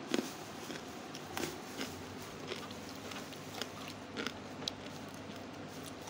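Someone biting and chewing small crunchy wild melons (kachri) close up, a scatter of short sharp crunches over a steady low hum.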